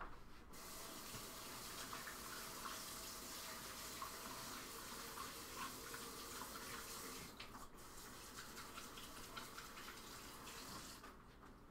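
Kitchen faucet running while hands are rinsed under the stream. The water comes on about half a second in, breaks briefly about two-thirds through, and is shut off abruptly near the end.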